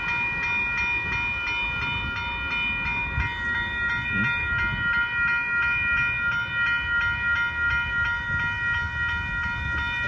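Railroad crossing's electronic warning bell ringing steadily in quick, even strokes while the crossing signals are active, over a low rumble.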